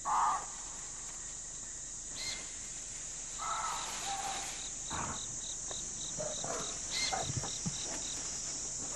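Forest insect chorus: a steady high-pitched hiss of insects with a cricket-like chirp repeating about three times a second. A short louder sound comes right at the start and another about three and a half seconds in.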